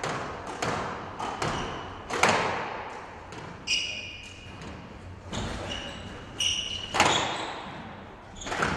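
Squash rally: the ball cracks off rackets and the walls about once a second, each hit echoing around the court, with short high squeaks of shoes on the court floor a few times in the middle.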